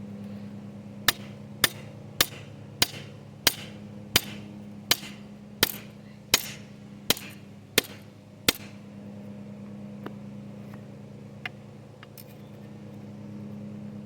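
Hammer blows on a knife blank lying on a thick aluminum block used as an anvil: about a dozen sharp strikes, roughly one every 0.7 s, each ringing briefly. They stop at about 8.5 s, and two faint taps follow. A steady low hum runs underneath.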